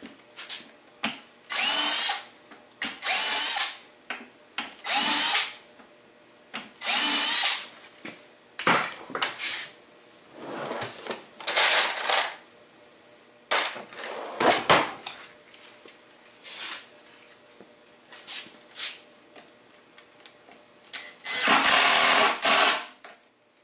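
Cordless drill with a Vix self-centring bit running in a series of about seven short bursts, each under a second or so, with small clicks and knocks between: drilling centred pilot holes in the mounting holes.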